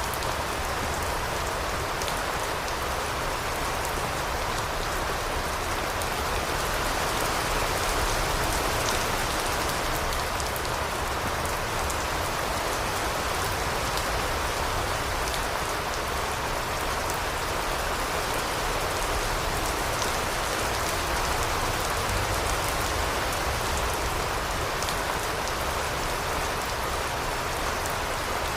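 Steady rain falling on a surface, with a dense spatter of individual drops.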